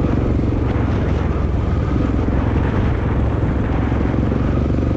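Off-road motorcycle engine running steadily under way on a dirt road. It is heard through the built-in microphone of a GoPro Hero 6 on the helmet's chin mount, which gives poor-quality sound.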